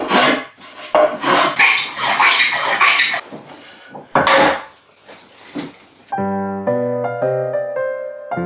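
Block plane taking quick, rhythmic strokes, about three a second, along the edge of a wooden board as it is rounded over into a bullnose moulding. One louder wooden stroke comes about four seconds in, then piano music from about six seconds in.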